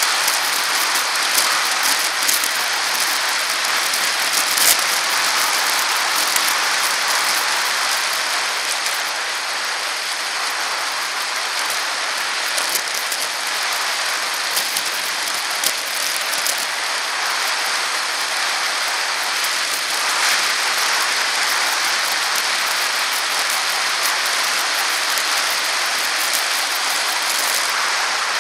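Steady hiss of wind and road noise picked up by a bicycle-mounted camera while riding, dotted with faint small clicks and rattles.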